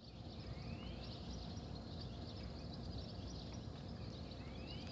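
Dawn chorus of small birds: many short high chirps, with a rising whistled call about half a second in and another near the end, over a low steady rumble.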